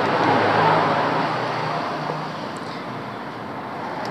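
Background traffic noise: a motor vehicle's low engine hum that fades out about two seconds in, over a steady rushing noise.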